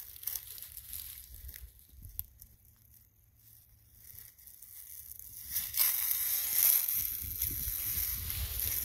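Footsteps crunching through dry fallen leaves and brush. The steps die down for a few seconds while the walker stoops to pick something up, then steady crunching steps resume about six seconds in.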